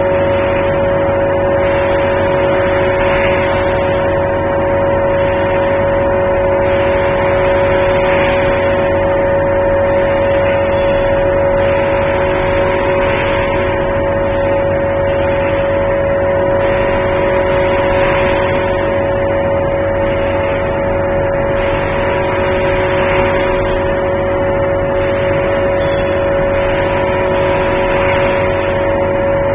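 Rotary egg-tray forming machine running: a loud, steady machine hum made of several held tones over a rushing noise, with a faint hiss that swells about every five seconds.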